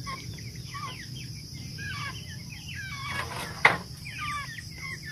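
Broiler chickens calling in many short, curved chirps over a steady high drone of crickets. A brief rustle ends in one sharp knock about three and a half seconds in.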